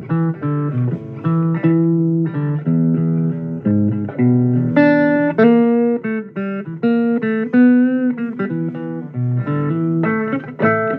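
Blues guitar instrumental passage: a run of plucked single notes and short chords, each struck and left to ring.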